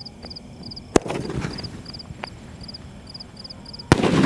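Aerial firework shot: a sharp pop as it fires about a second in, a hiss as it climbs, then a loud bang near the end as it bursts into crackling. Crickets chirp steadily behind it, about three chirps a second.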